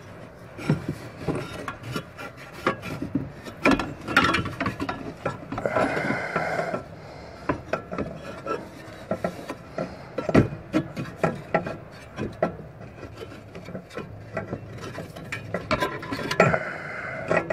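Metal parts scraping, rubbing and clinking irregularly as a replacement fan clutch is worked into place on the engine's water pump pulley by hand, with a few sharp knocks.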